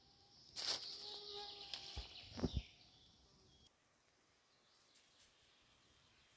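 A burst of rustling lasting about two seconds, with two dull knocks near its end, over a faint high steady hum that stops a little past halfway.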